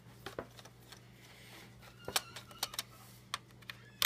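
Scattered light clicks and ticks of a small screwdriver turning out the screws of an HP EliteBook 8540p laptop's plastic bottom case, with a sharper click near the end.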